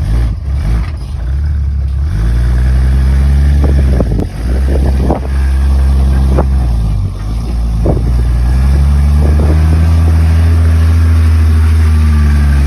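Off-road vehicle's engine revving up and running hard under load as it climbs rocks, then easing off near the end. Several sharp knocks break in over the middle seconds.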